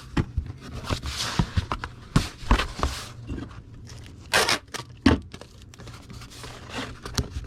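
Packing tape being pulled off and torn while a cardboard comic mailer is handled and pressed shut: a string of short scratchy rips and knocks, the strongest rip about halfway through.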